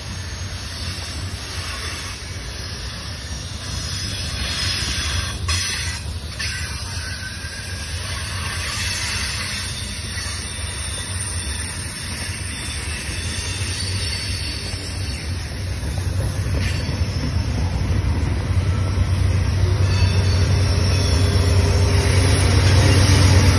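Norfolk Southern manifest freight train's cars rolling past: a continuous rumble of wheels on rail. A low rumble grows louder over the last few seconds.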